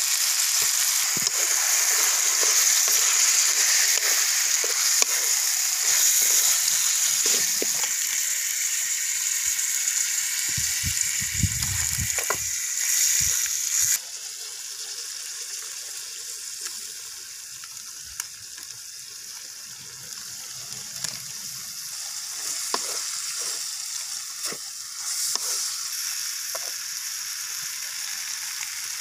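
Duck pieces frying in an aluminium karahi over a wood fire: a loud, steady sizzle with crackles that drops suddenly to a quieter sizzle about halfway through. Short knocks and scrapes come from a wooden spoon stirring the meat in the pan.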